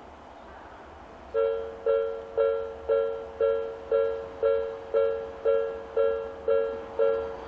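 Japanese railway level-crossing electronic warning alarm starting up about a second in and repeating its dinging two-tone strike about twice a second, each strike sharp and fading away. The alarm sounding means the crossing is activating for an approaching train.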